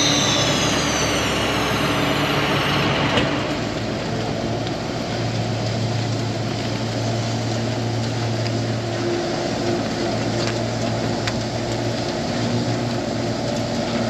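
John Deere tractor's diesel engine running steadily as it pulls a cotton module builder off a finished module. A high hiss stops about three seconds in, and the engine note changes about two seconds later.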